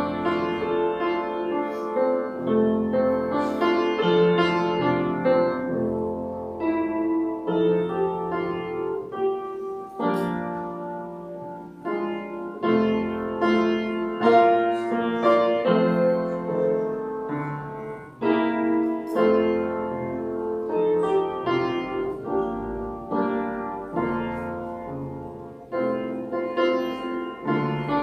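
Instrumental piano music: slow, sustained chords and a melody, changing note every second or so.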